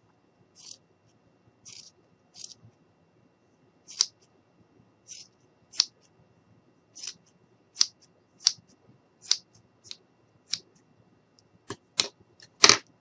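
Scissors snipping, one cut after another at an irregular pace, trimming the craft. The cuts come more sharply near the end.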